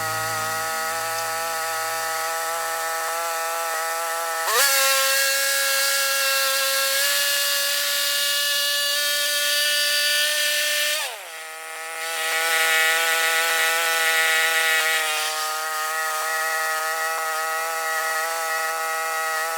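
Band sawmill's small gas engine running steadily while the band blade saws a slab off a white oak log. About four and a half seconds in, the engine speeds up and the cut gets louder. Near the middle the engine drops back and the sound dips briefly before the sawing picks up again.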